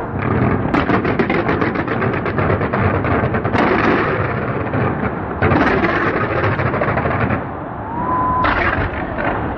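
Fireworks going off in a dense barrage: rapid crackling bangs over a continuous rumble, with a brief rising whistle near the end.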